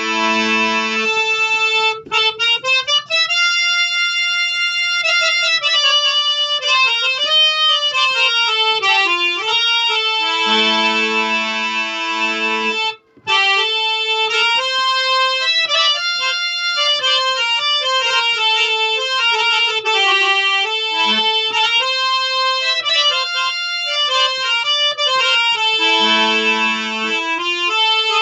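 Ratiram harmonium with two sets of German jubilate male (lower-pitched) reeds, played in a moving melody. Full held chords come at the start, about ten seconds in and near the end, with a brief break about 13 seconds in.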